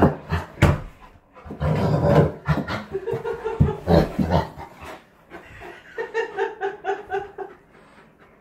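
Wet dog vocalizing and panting: low grumbles, a drawn-out whine, and a run of short pulsed yips near the end.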